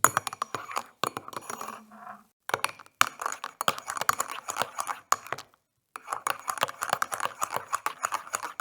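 A spoon stirring coffee in a cup, clinking rapidly against the sides in three spells, with brief pauses about two and five seconds in.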